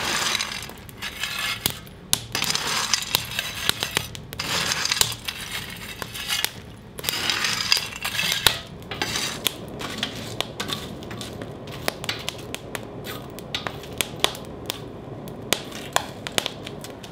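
Lumps of forge coal raked and piled over a burning kindling fire, the pieces clinking and scraping together in several loud bursts through the first half. After that, scattered sharp crackles and pops from the fire.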